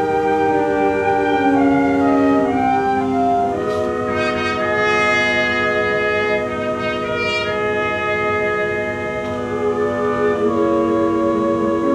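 Concert band of woodwinds and brass playing an arrangement of American spirituals, in held chords that shift every second or two.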